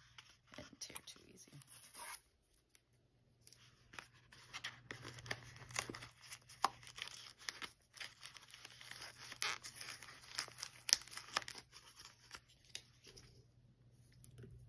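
A paper envelope being torn open and handled, with irregular tearing and rustling of paper that pauses briefly about two seconds in.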